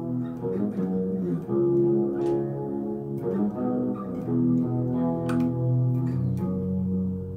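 Electric guitar playing a slow line of sustained, ringing notes that change every half second to a second, with a few sharp pick attacks about five to six seconds in.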